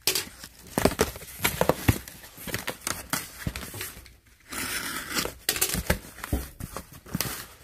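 Cardboard box being cut open with a box cutter and its flaps pulled back: irregular scraping, tearing and crinkling of cardboard and packing tape, with many sharp taps and knocks.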